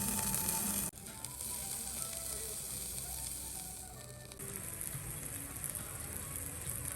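Food sizzling as it fries in a pan, a steady hiss. The sound changes abruptly about a second in and again after about four seconds, as at cuts between shots.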